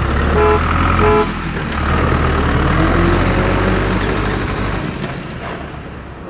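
Heavy truck engine rumbling steadily, with two short horn toots about half a second and a second in. The engine pitch then rises and falls, and the engine sound fades away near the end.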